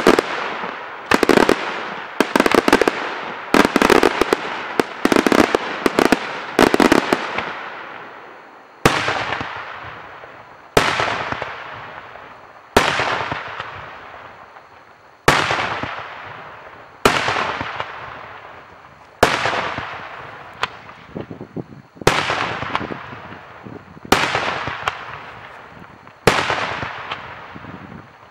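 Daytime fireworks display, aerial shells bursting overhead: a rapid run of bangs for the first seven seconds or so, then single loud reports about every two seconds, each trailing off in a long rolling echo.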